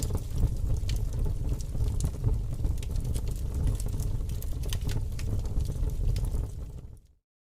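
Wood fire burning in a fireplace: a steady low rumble of flames with scattered sharp crackles and pops. It fades out to silence near the end.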